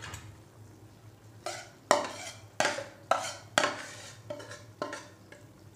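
Metal spoon knocking and scraping crushed fried onions off a plastic plate into a metal cooking pot: about seven sharp knocks roughly half a second apart, starting about a second and a half in.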